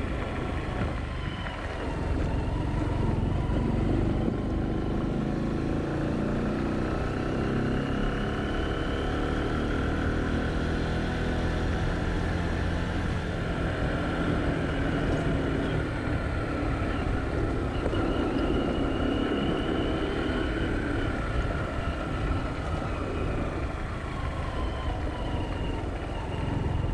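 Motor vehicle driving along a road: engine running steadily, its pitch slowly rising and falling with speed, over a continuous low rumble of road noise.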